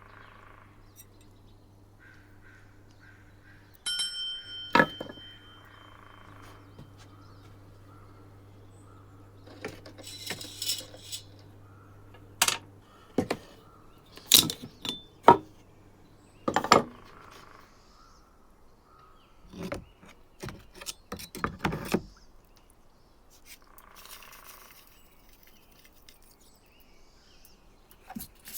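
Scattered knocks and clicks of tools and parts being handled, with one ringing metal clink about four seconds in.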